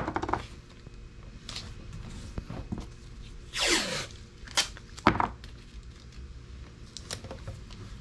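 Yellow painter's tape being pulled off its roll with a rasping peel, loudest about three and a half seconds in, plus a few sharp clicks and taps as the strip is handled.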